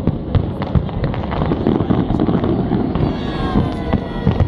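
Fireworks going off: a dense run of sharp pops and bangs over a continuous low rumble.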